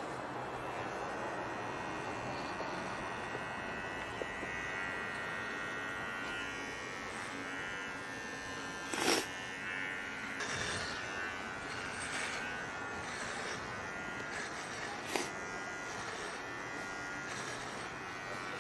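Electric hair clippers buzzing steadily as they shave a man's head and eyebrows, with a brief louder sound about nine seconds in.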